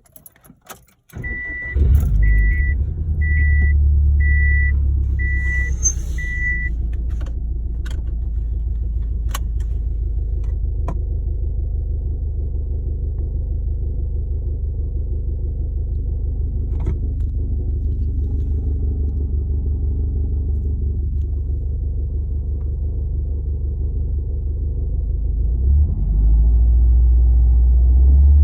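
2006 Subaru WRX's turbocharged flat-four starting about a second in, heard from inside the cabin, with a warning chime beeping six times just after, then idling steadily; it runs higher again about 26 seconds in. The idle carries the weird noise the owner suspects could be a spun bearing, which began after the engine overheated without coolant.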